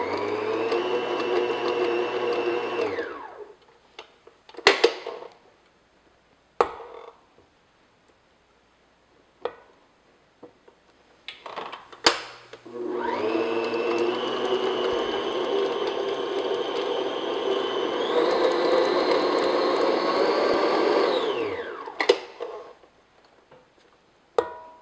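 Stand mixer's motor creaming butter with the paddle attachment: it runs steadily, winds down about three seconds in, and after a few clunks in the pause starts again about halfway through. Partway through the second run its whine steps up in pitch as the speed is raised, then it winds down near the end, followed by a light clack as the paddle is scraped.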